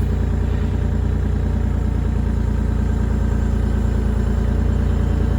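Diesel engine of a compact excavator running steadily while it carries a strapped load of lumber.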